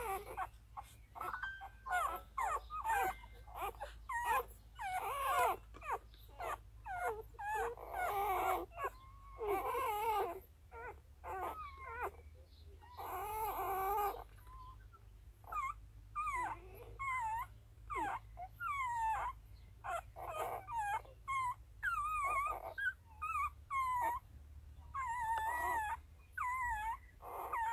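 Newborn puppies squeaking and whimpering while they nurse: many short, high cries that bend up and down in pitch, one quickly after another.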